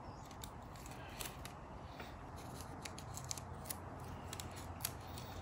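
Faint scattered ticks and crinkles of scotch tape and a paper strip being handled against a small horn motor, as a brush is taped back, over a steady low hum.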